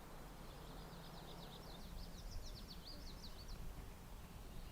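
A small songbird singing one rapid trill of short, high, quickly repeated notes lasting about three seconds, faint against a low steady hum that fades out about two seconds in.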